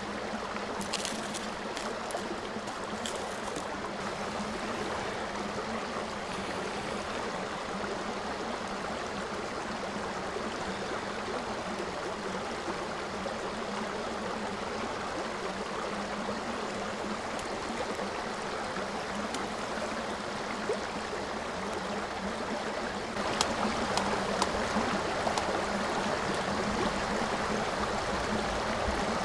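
Steady rushing noise like flowing water, with light clicks of sticks being laid on a campfire grate. A little over twenty seconds in it grows louder, with sharp crackles as the kindling catches and starts to smoke.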